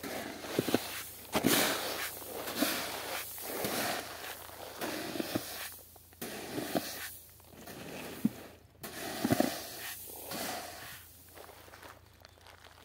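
Wheat grain hissing and rattling as a plastic basin is scooped into a heap of it and lifted, in repeated short rushes about once a second, with sharp clicks of the basin against the grain.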